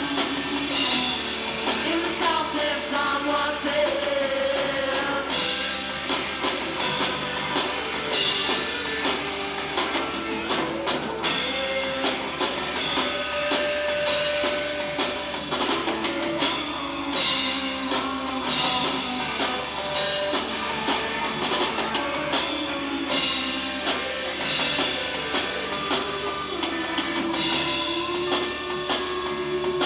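Live rock band playing: electric guitars, including a Les Paul-style guitar, and a drum kit with cymbal crashes, with singing over them.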